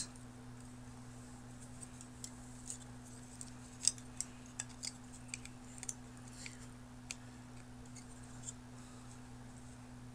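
Light scattered clicks and taps of a small model airliner and its stand being handled in the hands, the sharpest about four seconds in, over a steady low hum.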